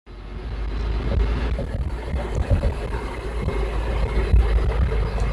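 Hino 500 truck's diesel engine running, heard from inside the cab, with a low rumble and knocks and rattles as it drives over a rough dirt road. It fades in over the first moment.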